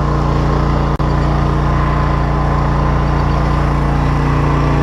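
Steady engine drone on an electrofishing boat, a constant low hum with a brief click and dropout about a second in.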